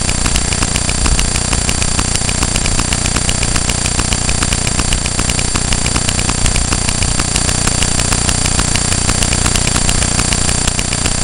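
Steady electrical buzzing coming from inside the camera itself: a constant whine with a fast, even ticking running through it and a low hum beneath.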